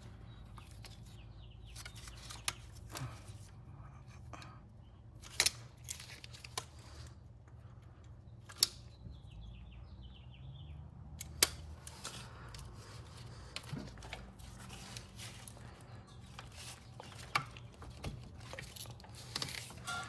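Hand tools and metal parts clicking and clinking as they are handled, with three sharp clicks standing out about five, eight and eleven seconds in, over a steady low hum.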